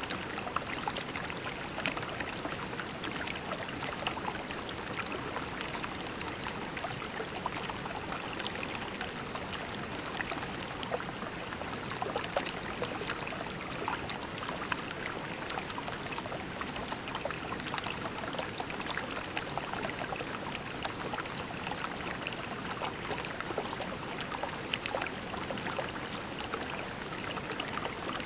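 Shallow creek water running and babbling over pebbles: a steady rush with many small splashes and trickles.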